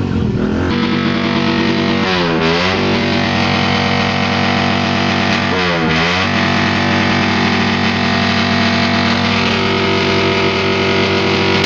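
Suzuki Raider motorcycle engine revved hard and held at high revs, the pitch dipping briefly and climbing back about two seconds in and again near six seconds.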